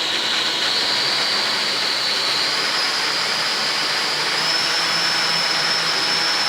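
Litehawk Quattro quadcopter's four motors and pinion-and-spur gear drives running up to full throttle: a whine that rises in pitch over the first few seconds and then holds steady, over a rushing noise. Two pinions have just been reset lower, and the gear noise is about as quiet as it will get.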